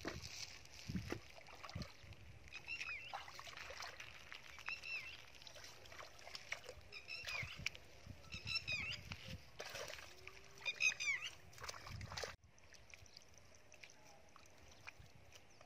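Hands splashing and squelching in shallow muddy water while several short bird calls, in quick runs of two or three, sound between about two and eleven seconds in. The level drops suddenly about twelve seconds in, leaving a faint hiss.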